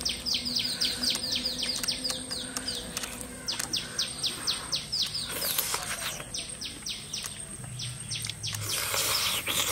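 Songbird singing: runs of quick, high chirps that each sweep down in pitch, several a second, coming in three or four runs with short gaps between.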